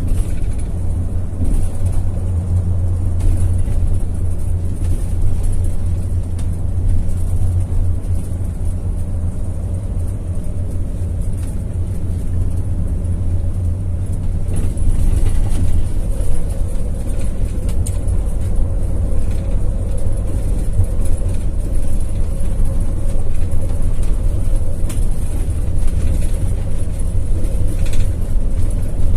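Intercity bus on the move, heard from inside the front of the cab: a steady low engine and road rumble, with a mid-pitched drone joining about halfway through and staying on.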